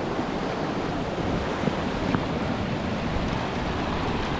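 Whitewater rapids rushing steadily over rock.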